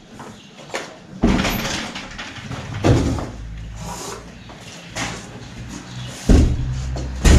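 Large wooden door being swung open and shifted, with several heavy knocks and thuds, the loudest two near the end.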